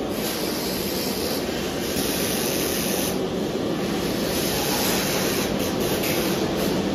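Steady din of a chainsaw assembly line, with a few stretches of high hiss over it.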